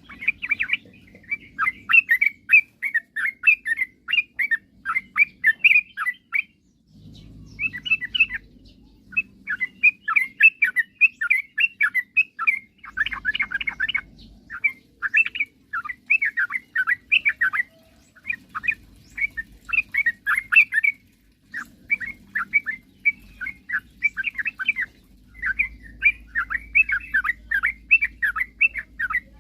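Yellow-vented bulbul (trucukan) in full, vigorous song: quick bubbling, chattering phrases repeated almost without pause, the kind of 'gacor' song used as a lure to set other bulbuls singing. A faint low hum comes and goes underneath.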